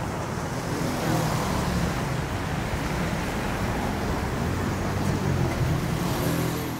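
City road traffic: cars driving past, a steady hum of engines and tyres.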